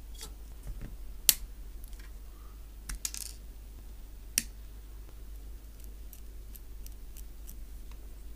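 Plastic model-kit parts being snipped off the runner with hobby side-cutter nippers: three sharp snips, about a second in, around three seconds and around four and a half seconds, followed by a few faint ticks.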